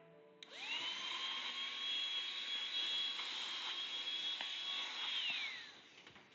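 Small electric motor spinning up with a quickly rising whine, running steadily at high speed for about five seconds, then winding down with a falling pitch.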